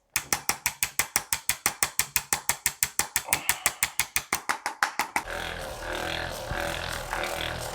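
Rapid, evenly spaced mechanical clicking, about eight clicks a second, that starts abruptly and stops about five seconds in. Steady held tones take over for the rest.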